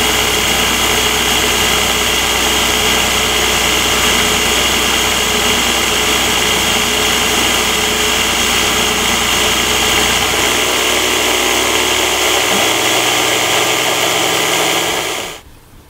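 Belt-driven spindle of a CNC-converted benchtop mill running at high speed while an end mill takes a finishing pass along an aluminium part: a steady whine over the cutting noise. It cuts off suddenly near the end.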